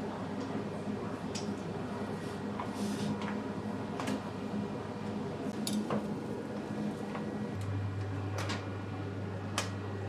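Light, scattered clinks of metal spoons against stainless steel pots and bowls while noodle toppings are served, over steady kitchen background noise. A steady low hum comes in near the end.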